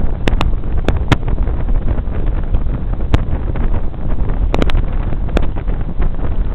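Strong wind buffeting the camera microphone: a loud, rough, continuous rumble, broken by scattered sharp clicks.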